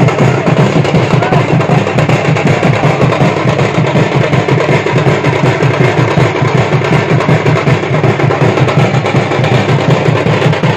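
Loud drum music with a fast, steady beat.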